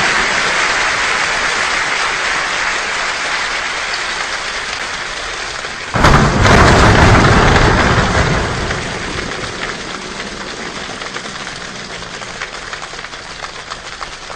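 A choir imitating a rainstorm with body percussion: a steady rain-like patter, a sudden loud thunder-like crash about six seconds in, then the storm fading and thinning out to scattered taps.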